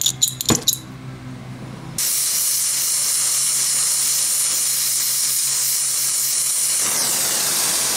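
Victor oxy-fuel torch flame hissing steadily while brazing thick steel with bronze rod; a click is heard shortly before the hiss comes on suddenly about two seconds in.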